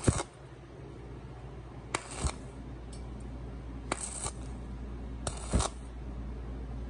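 A 1.0 mm stick-welding rod tapped against a 0.3 mm steel sheet, striking short arcs for tack welds. Four brief crackling bursts, each a pair of sharp clicks, come about every one and a half to two seconds over a low steady hum.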